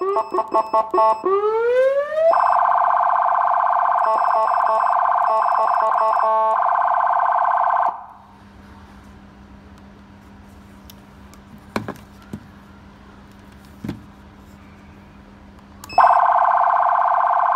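Black Falcon 100W siren amplifier sounding through its speaker, run through its tones. It starts with a burst of rapid chirps, then a rising wail sweep, then a loud, steady, blaring horn tone broken briefly a couple of times. The tone cuts off about eight seconds in, leaving a few clicks, and comes back on near the end.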